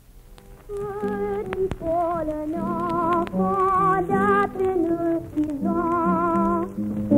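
A boy soprano singing with vibrato over piano accompaniment, in phrases that break every second or so.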